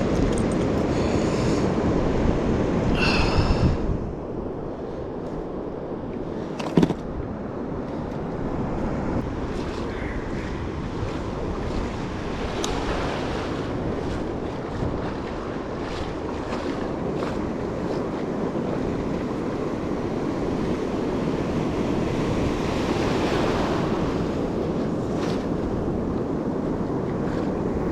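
Ocean surf washing on a beach, with wind buffeting the microphone. One sharp knock about seven seconds in.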